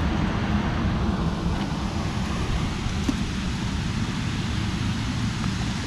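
Steady rush of water pouring over a spillway, with wind buffeting the microphone.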